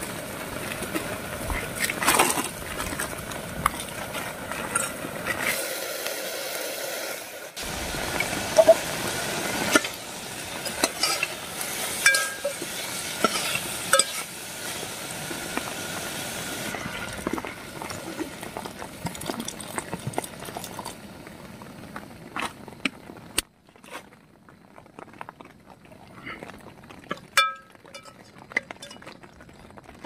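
Onions, tomatoes and noodles frying in a pressure-cooker pot on a gas burner, sizzling, while a metal ladle stirs them and clinks and scrapes against the pot. The sizzle dies down after about twenty seconds, leaving scattered clinks.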